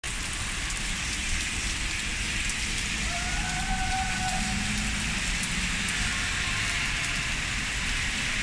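Steady rain falling on wet paving and trees, an even hiss, with a faint brief whine about three seconds in.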